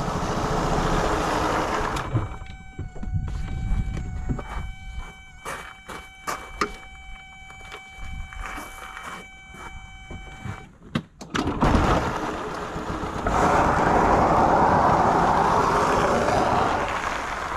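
Car tyres rolling over gravel as the car is towed, a loud, even crunching hiss through the last six seconds. Before that come scattered clicks and knocks of a tow strap being hooked between two tow balls, over a steady buzzing tone.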